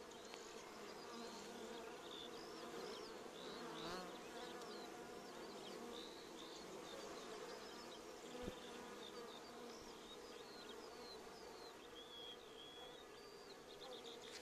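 Honeybees buzzing steadily as they fly around the hive entrance, faint, with many short high chirps scattered over it.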